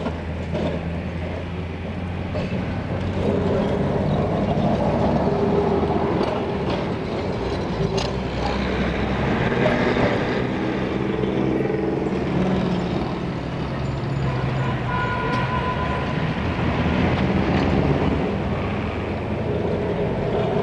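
Electric tram running: a steady hum and rumble from the motors and wheels on the rails, with a few sharp clicks and knocks from the track.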